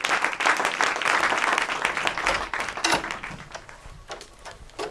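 A small group of people clapping. The applause thins out and dies away after about three seconds, leaving a few scattered claps.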